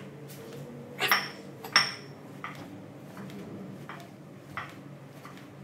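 Metal weights inside a backpack worn during push-ups clinking with the movement. Two sharp clinks come about a second in, the second the loudest, then fainter knocks every second or so, over a steady low hum.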